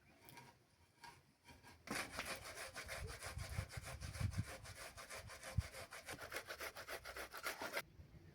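Fast, even back-and-forth scraping strokes, several a second, starting about two seconds in and stopping shortly before the end.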